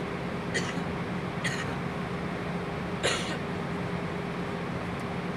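Steady cabin drone of an Airbus A320 in flight, a constant rush with a low, even hum underneath. Three brief, sharp noises cut through it, the loudest about three seconds in.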